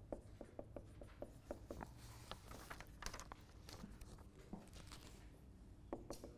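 Faint scratching and tapping of a marker on a whiteboard as a heading and figures are written: a run of short strokes over a low steady room hum.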